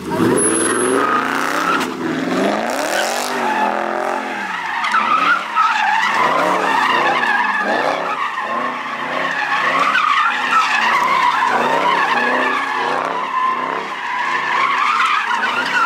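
Car doing donuts: the engine revs up and down in quick repeated surges over a continuous tyre squeal.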